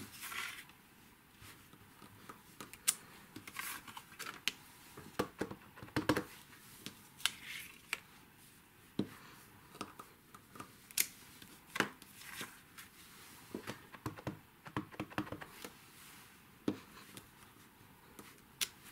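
Quiet paper-crafting handling sounds: cardstock sliding and rustling on the work mat, with scattered light taps and clicks as a clear stamp is set down and pressed onto the card.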